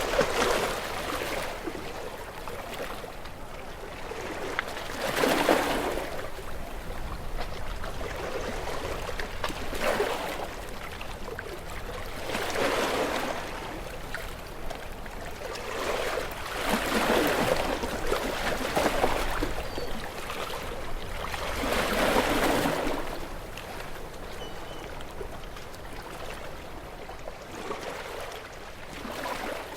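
Sea waves washing against shoreline rocks, a swell of water noise every few seconds over a constant wash.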